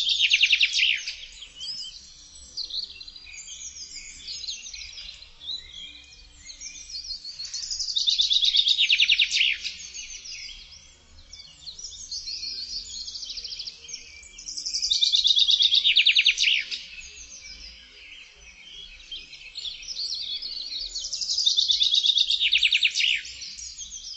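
A songbird singing a loud, rapid trilled phrase that falls in pitch, about two and a half seconds long and repeated about every seven seconds, with fainter chirps between the phrases.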